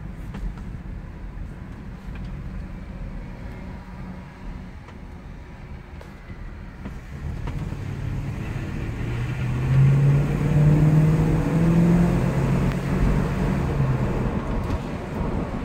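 A 327 small-block V8 with automatic transmission in a 1966 Chevrolet Impala SS, heard from inside the cabin while driving. It runs steadily and low at first, then revs up and grows louder about eight seconds in as the car accelerates, easing off a little near the end.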